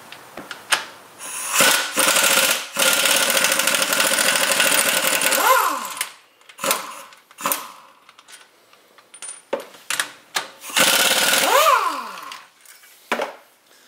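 Impact wrench hammering loose the rear differential's bearing cap bolts. There is one long burst of rapid hammering and, later, a shorter one, each ending in a falling whine as the motor spins down. Brief blips of the tool sound in between.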